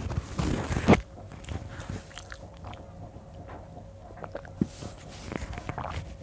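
Eating rice by hand: fingers working rice on a plate, with chewing and small mouth clicks. A loud burst of rustling noise in the first second, then softer scattered clicks.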